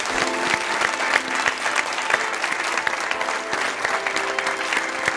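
Studio audience applauding, a dense steady clatter of many hands. Music with held notes comes in under the clapping just after it starts.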